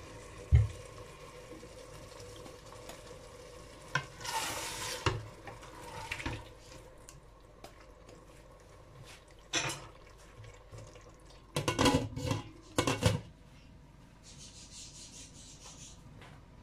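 Cooking sounds at a stainless steel pot of zucchini in masala: a little water poured in with a brief hiss, a wooden spoon scraping and knocking against the pot, and a cluster of clattering knocks about 12 s in as the pot is covered with its glass lid.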